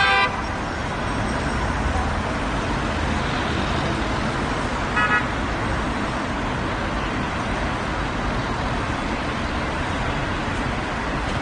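Steady road traffic rumble, with a car horn honking briefly right at the start and again about five seconds in.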